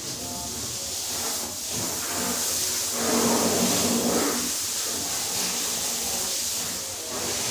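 A car-wash sprayer hissing steadily against a car's bodywork, louder and fuller for a second or so about three seconds in.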